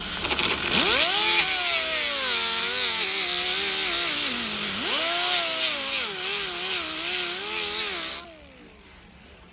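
Handheld power tool cutting into the UTV door's interior plastic trim: its motor whine rises to speed, sags and recovers as it bites into the plastic, with a steady hiss from the cut. It stops about 8 seconds in and winds down.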